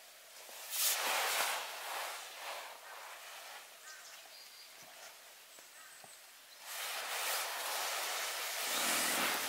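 Rustling noise in two stretches, one about a second in and a louder, longer one from about seven seconds in, with quieter moments between.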